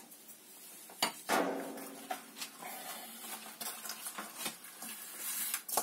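Clatter of a plastic basin being handled against an electric water heater's open element flange. There is a sharp knock about a second in, a short squeak right after it, scattered light knocks, and another knock near the end.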